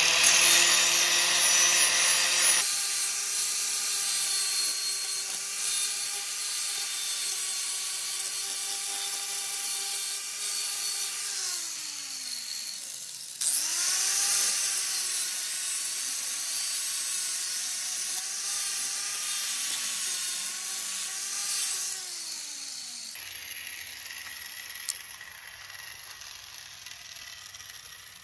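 Electric angle grinder grinding the cutting edge of a steel lawnmower blade to sharpen it: a steady motor whine with a harsh high hiss. About halfway through it winds down with falling pitch, then starts again with rising pitch and runs until it winds down once more about three quarters of the way through.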